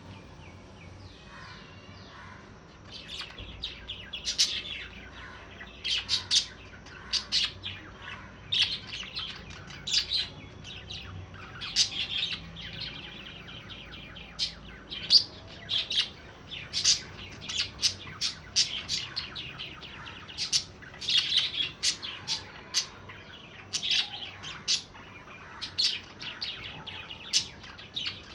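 Budgerigars chirping: quick runs of short, high chirps and tweets in bursts, starting about three seconds in.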